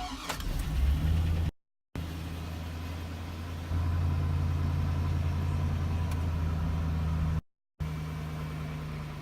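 2001 Chevy Silverado's 4.8-litre V8 starting cold and running at a low, steady idle. It gets louder about four seconds in and settles back near the end. This is the rough cold-start idle the owner is showing, which he says is usually worse than this. The sound cuts out briefly twice.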